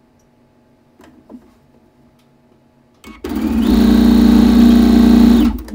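Computerised sewing machine stitching a seam. It starts about three seconds in, comes quickly up to speed with a steady running hum, and stops abruptly after about two and a half seconds. Before it, a couple of faint clicks of fabric being set under the presser foot.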